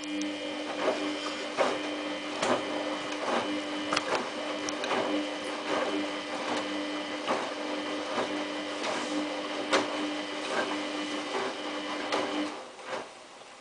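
Samsung WF8804RPA front-loading washing machine turning its drum during the prewash: a steady motor whine with repeated soft knocks from the tumbling load, stopping abruptly about twelve and a half seconds in.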